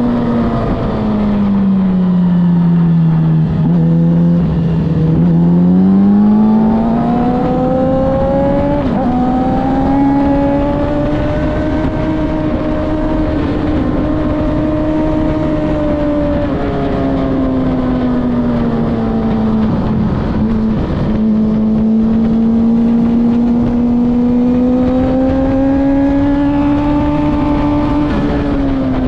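A track-day vehicle's engine running hard and continuously, its pitch dropping over the first few seconds, climbing back from about five seconds in, dipping again around eighteen to twenty seconds, then rising once more before falling off at the very end, as it brakes for and accelerates out of corners.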